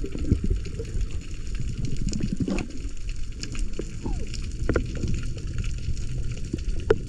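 Water sloshing and gurgling close to the microphone, with scattered small clicks and knocks.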